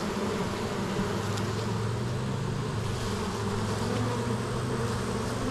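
Honeybees buzzing in a dense, steady low hum around an open hive during an inspection.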